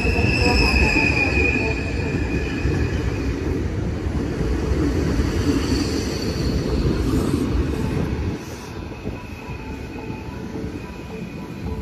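KRL Commuter Line 6000-series electric multiple unit (ex-Tokyo Metro Chiyoda Line) running past the platform close by, a steady rumble with high steady tones above it. About eight seconds in the sound drops to a quieter, steady train noise.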